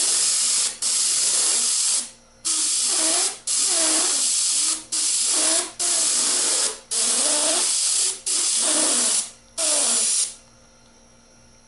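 Airbrush fitted with a homemade spatter cap (a caulking-tube end covered with fibre screen) spraying in about nine short hissing bursts, the trigger pressed and released over and over to fleck paint into a granite-look speckle. A faint wavering tone runs under the hiss, and the spraying stops near the end.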